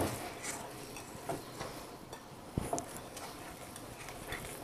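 Wire whisk stirring thick chocolate cookie dough in a glass bowl, with faint irregular clicks and scrapes of the wires against the glass.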